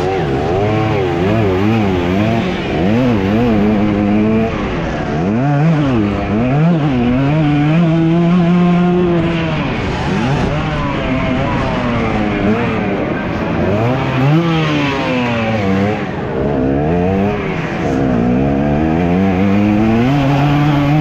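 Onboard sound of a racing dirt bike's engine, revving up and dropping back over and over as the throttle is worked around the track, with one longer held pull near the middle.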